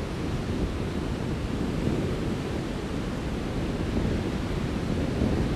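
Sea surf washing onto a beach in a steady rush, with wind blowing on the microphone.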